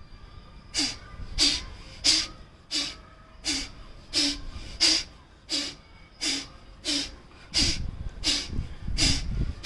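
Rapid, forceful exhalations through the nose, a rhythmic series of short sneeze-like blasts about three every two seconds, as in the yogic induced-sneezing practice (prachchhardan), which expels water left in the nasal passages and sinuses after jala neti. A low rumble sits underneath near the end.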